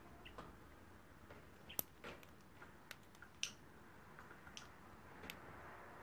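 Near quiet in a rosy-faced lovebird's cage, broken by about a dozen faint, irregular clicks and ticks from the bird moving about. The sharpest come about two and three and a half seconds in.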